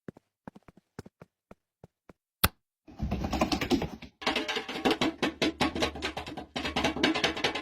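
A few faint scattered ticks and one sharp click, then from about three seconds in, fast music with dense drumming.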